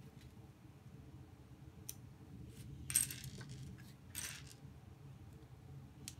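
Plastic LEGO pieces clattering and clicking against each other as they are handled, in a few short bursts around the middle.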